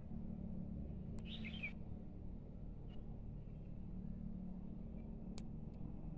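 Outdoor background with a steady low rumble, a short bird chirp about a second and a half in, and two sharp clicks.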